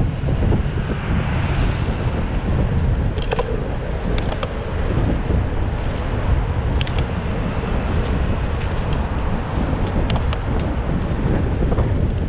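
Wind buffeting an action camera's microphone while cycling, a steady low rumble with road traffic noise under it. A few brief sharp ticks stand out.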